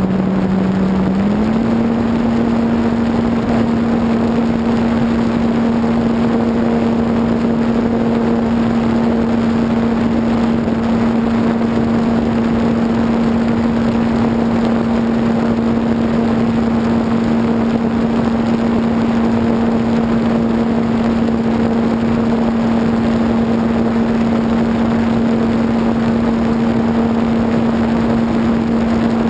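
E-flite Apprentice RC plane's electric motor and propeller humming steadily in flight, heard from a camera on the plane with a heavy rush of air. About a second and a half in, the pitch steps up a little as the motor speeds up, then holds.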